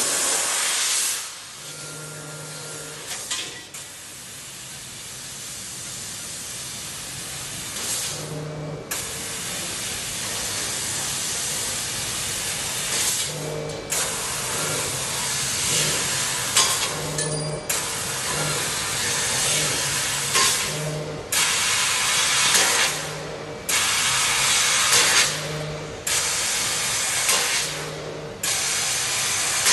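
Fiber laser tube cutter's assist gas hissing from the cutting nozzle. It cuts off and starts again every two to four seconds, with a short low hum at many of the breaks.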